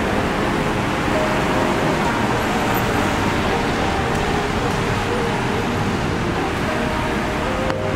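Steady city traffic noise: cars and a van driving past over a wet road, tyre noise mixed with engine sound.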